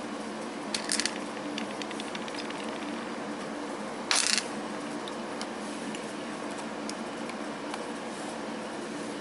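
Small parts being handled on a Nissan Leaf battery module: a quick run of light clicks about a second in and a short scraping rustle around four seconds in, over a steady background hum.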